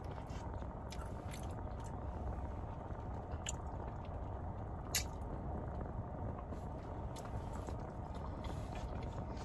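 Close-miked chewing: soft, wet mouth sounds with a scatter of sharp little mouth clicks, the sharpest about five seconds in.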